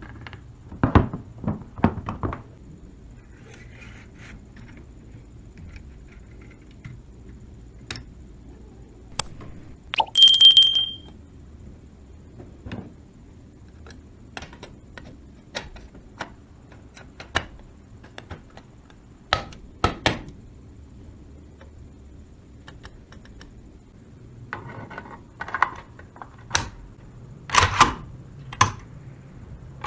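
Scattered sharp clicks and knocks, a few clustered near the start and more near the end, with a brief high-pitched squeal about ten seconds in.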